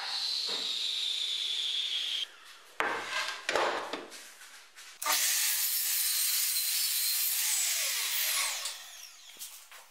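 Sliding miter saw cutting through spruce plywood: a loud, even cutting noise lasts about three seconds, from about halfway in, then the blade winds down with a falling pitch. It is preceded by a steady high whine that stops about two seconds in, and a few knocks of the board being handled.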